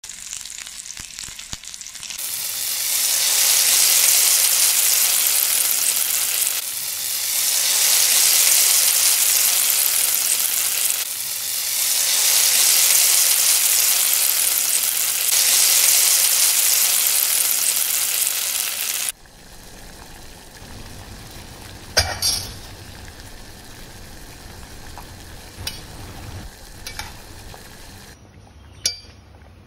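Smoked sausage slices frying in oil in a pan: a loud sizzle comes in about two seconds in, swells and dips a few times, and cuts off suddenly about two-thirds of the way through. After that it is quieter, with a few sharp clinks of a utensil against the pans.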